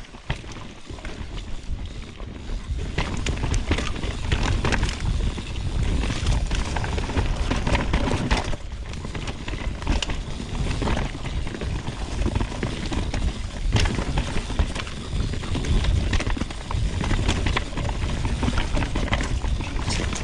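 Mountain bike descending a dirt trail at speed: the tyres run over rough ground, with many quick clicks and rattles of chain and frame over a heavy low rumble.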